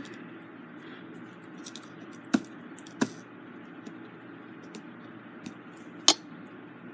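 Light plastic clicks and taps of diamond painting: a drill pen picking up and pressing resin drills onto the canvas and the plastic drill tray being handled. Three sharper clicks stand out, about two seconds in, about three seconds in and near the end, over a faint steady hum.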